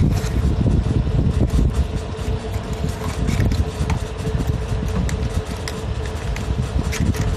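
Cardboard packaging and a clear plastic bag being handled, making scattered short clicks and crinkles, over a loud, steady low rumble of background noise.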